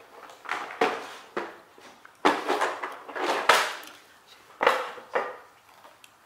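Cardboard jigsaw puzzle pieces being slid and spread by hand across a wooden floor: a string of short scuffing swishes.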